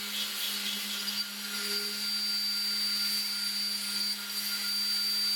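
CNC router's water-cooled spindle running with a steady high whine and a low hum while its corn-type end mill cuts GRC fibre-cement board, the rough, hissing cutting noise growing louder over the first couple of seconds.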